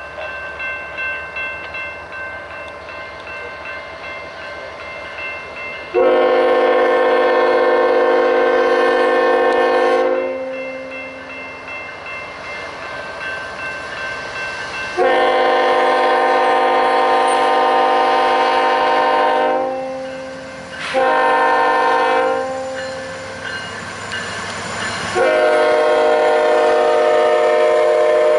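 Union Pacific diesel locomotive's air horn sounding the grade-crossing signal as the train approaches. It gives two long blasts, a short one, and a final long blast that is still sounding at the end. Each blast is a chord of several notes over the locomotive's engine rumble.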